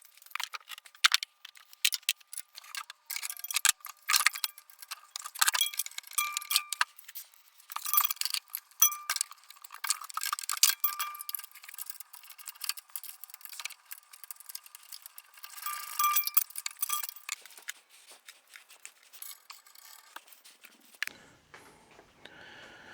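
Metal hand tools clicking and clinking in quick irregular runs: a 13 and 14 mm wrench and sockets working the nuts and bolts of an exhaust pipe's flange and mounting bracket. The clinking stops shortly before the end.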